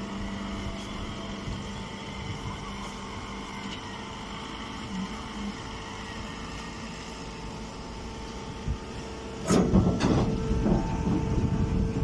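Hydraulic straw baler running with a steady mechanical hum; about nine and a half seconds in, a loud burst of rattling and clattering starts and keeps going.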